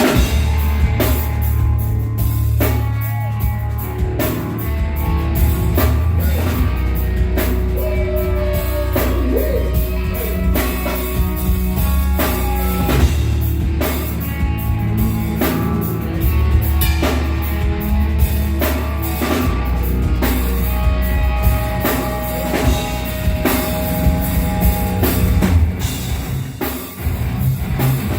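Heavy metal band playing live on stage: loud drum kit with steady hard hits, down-tuned distorted guitars and bass, and singing over the top.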